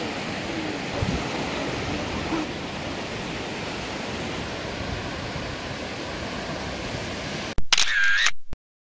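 Steady rush of surf breaking on a sandy beach. Near the end a short, loud, high-pitched sound with a wavering pitch cuts in, then everything cuts off suddenly.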